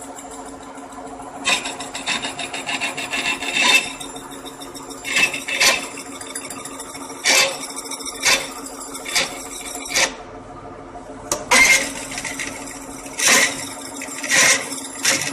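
Lathe running with a steady hum while a rotating grooving tool cuts an eccentric groove into the job, with about a dozen short, loud cutting bursts at uneven intervals.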